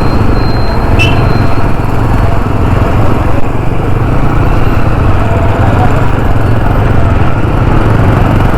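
Motorcycle running at riding speed, its engine a steady drone under loud wind rush on the rider's microphone, with one sharp click about a second in.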